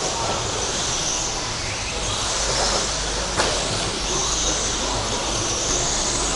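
Electric RC stadium trucks with 13.5-turn brushless motors racing: a high motor whine that swells and fades as the trucks go round, with a sharp click about three and a half seconds in.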